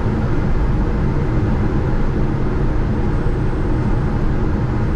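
Steady cockpit noise of a Gulfstream G650 on final approach: an even rush of airflow and engine sound on the flight deck, heaviest in the low end, with no change in level.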